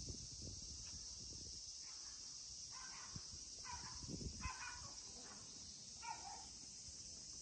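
Steady high-pitched chorus of insects, with about five short calls about two to six seconds in.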